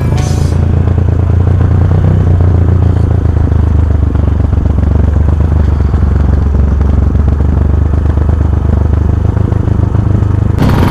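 Motorcycle riding, heard from a bike-mounted camera: a loud, steady low rumble of engine and wind buffeting the microphone.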